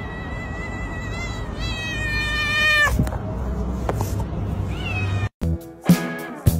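A cat's long, high-pitched whining meow that wavers, then slides steeply down and breaks off about three seconds in, followed by a shorter call, over background music. Near the end the music changes to a beat-driven track.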